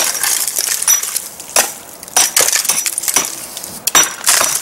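Loose, crumbling concrete being scraped and knocked off a foundation wall to prepare it for patching: a run of irregular sharp scrapes, knocks and clinks.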